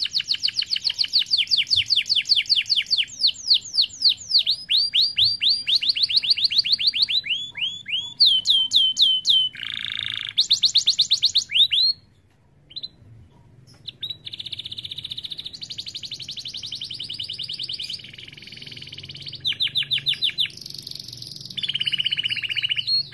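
Domestic canary singing: a long song of rapid trills, each a fast run of one repeated note, switching to a new trill every second or two. There is a brief pause about halfway through.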